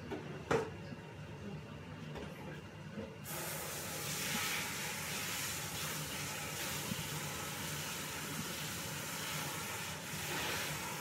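A sharp knock, then a steady hiss that switches on suddenly about three seconds in and runs on unchanged.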